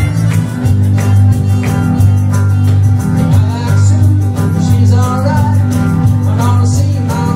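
Live blues band: a harmonica in a neck rack played into a vocal microphone over electric guitar and a steady bass line, with a voice singing in the second half.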